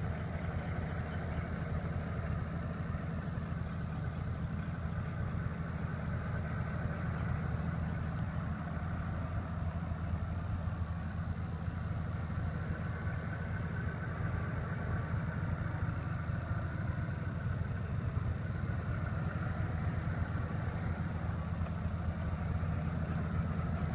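1977 Chevrolet Monte Carlo's mild 350 V8, bored .060 over, idling steadily. The sound is low-pitched and even, with no revving.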